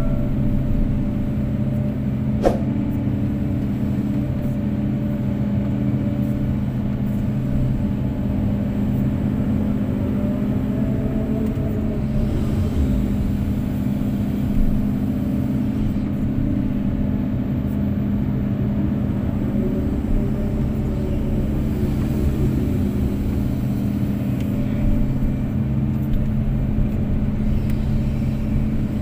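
Kobelco SK250-8 excavator's diesel engine running steadily under digging load, heard from the cab, with faint whines that rise and fall as the hydraulics work the boom and bucket. A single sharp knock comes about two seconds in.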